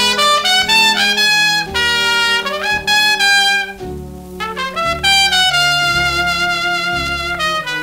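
Background music led by brass, with a trumpet playing a melody of long held notes over lower brass.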